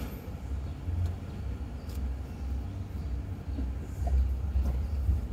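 Low, uneven rumble of city street traffic under an elevated subway structure, heard from a car stopped in traffic.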